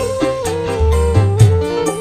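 Dangdut koplo instrumental music: a held melody line stepping from note to note over a pulsing bass line.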